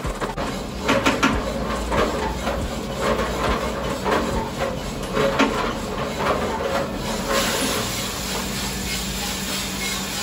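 Maestro drum coffee roaster running while the beans crack with irregular sharp pops. About seven seconds in, a steadier rushing hiss takes over as the roasted beans are dropped from the drum into the cooling tray at the end of the roast.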